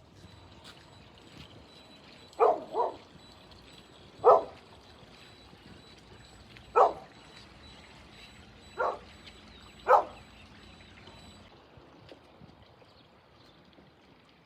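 Six short, loud barks from an animal, the first two in quick succession, spaced a second or two apart, over a faint steady hiss.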